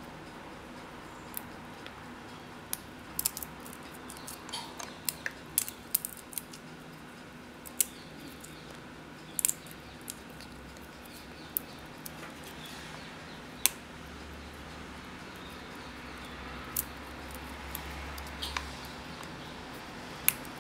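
Chopped walnut pieces dropped into banana cake batter in a mixing bowl: scattered small, sharp clicks and ticks over a steady low hiss.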